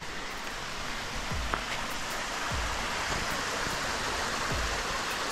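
Small mountain stream running over mossy rocks, a steady rushing of water, with soft low thumps about once a second.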